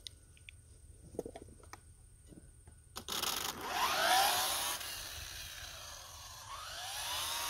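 Arrma Typhon 6S RC car's brushless motor whining, starting about three seconds in, its pitch gliding up and down as it is throttled, over a steady hiss.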